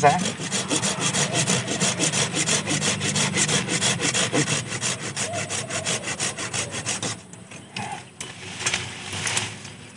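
Hand pruning saw cutting through a live stem of a sancang bonsai, quick back-and-forth strokes about five a second that stop about seven seconds in.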